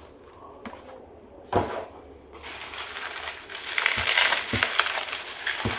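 Parcel packaging crinkling and rustling as it is handled and unwrapped, with a single thump about a second and a half in and a few soft knocks near the end.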